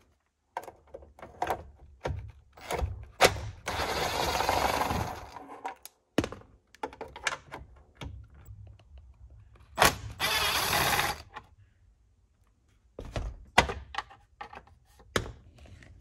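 DeWalt cordless driver running twice, once for about a second and a half and once for about a second, backing out two T25 Torx screws from a steering-column trim bezel. Short knocks and clicks of handling come in between.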